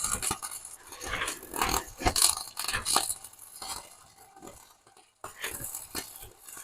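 Irregular clinks and scrapes of metal tools on metal parts.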